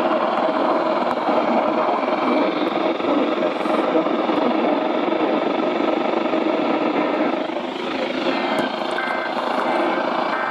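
Steady rushing static on an emergency weather-alert broadcast after the spoken warning ends; about eight seconds in, short bursts of the Emergency Alert System's two-tone digital data signal begin.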